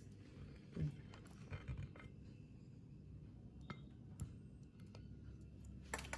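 A few faint, scattered clinks and clicks of stainless steel kitchen tongs lifting a croffle and setting it down on a serving plate.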